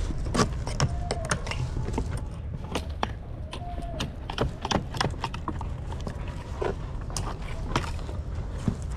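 Irregular knocks and clatter of hard objects being handled and moved, several a second at times, over a low rumble.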